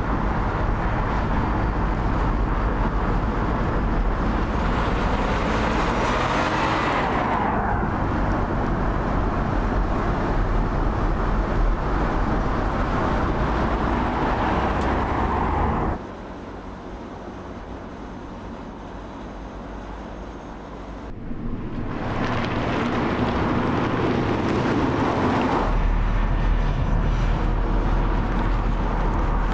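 Audi A3 Sportback driving on a road: steady engine and tyre noise. About halfway through the sound cuts abruptly to a quieter stretch, then builds again as the car comes closer.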